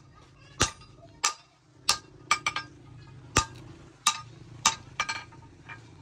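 Hand hammer striking a red-hot steel bar, cut from car steering steel, on an anvil: about ten blows at an uneven pace, each with a short metallic ring.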